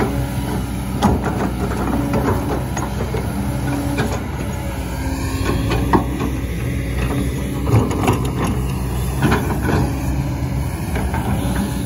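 Kobelco crawler excavator's diesel engine running steadily, with several short sharp clanks and knocks as the machine works.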